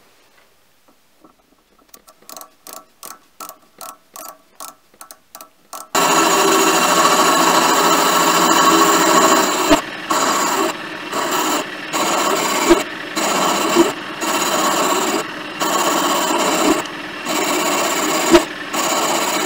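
Mini lathe boring out the compound slide casting: the cutting tool scrapes and rasps steadily inside the spinning casting's bore, with a thin high ring over it. The cut breaks off briefly about once a second, with a few sharp knocks. For the first few seconds there is only a quieter rhythmic ticking, about two to three a second.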